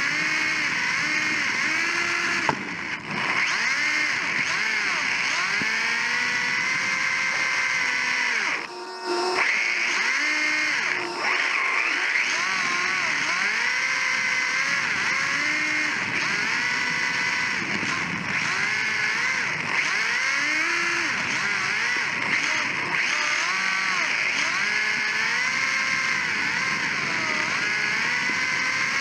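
Electric motor and gear drivetrain of a Sakura D4 1/10-scale RC drift car, heard up close from on the chassis, whining and repeatedly rising and falling in pitch with the throttle over a steady hiss. The whine briefly drops out twice, about three and nine seconds in.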